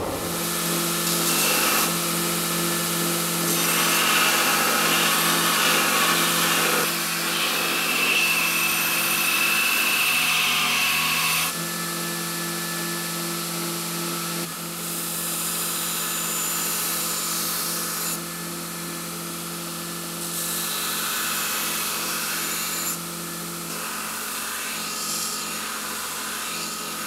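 Belt grinder running with a steady motor hum while a forged steel knife blade is ground against the belt, the grinding noise changing abruptly several times.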